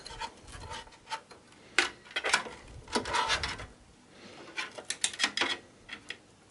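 Cables being handled and pulled through a PC case: irregular rubbing and scraping, with sharp plastic clicks and knocks that come in clusters about two, three and five seconds in.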